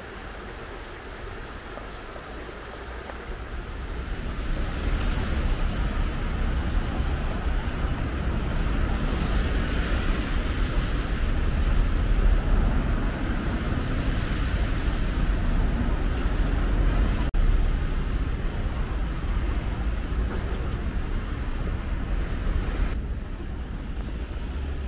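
City road traffic on wet streets: cars and buses passing below, a steady rumble with tyre hiss that swells and eases as vehicles go by. The first few seconds are quieter, with a steady hiss of running water before the traffic comes up.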